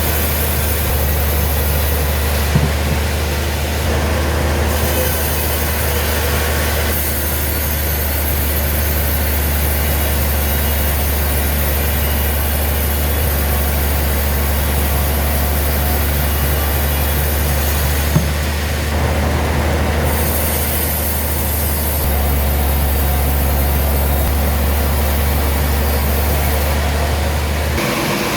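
Sawmill machinery running with a steady low drone and a wash of mechanical noise, with a couple of sharp knocks. The drone cuts off near the end.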